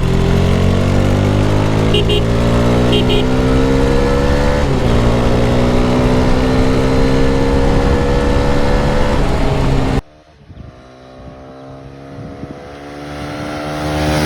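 KTM 250 Duke's single-cylinder engine accelerating, its pitch climbing steadily with a short break for a gear change about five seconds in, under heavy wind noise. About ten seconds in the wind noise cuts out suddenly and the engine goes on rising, quieter.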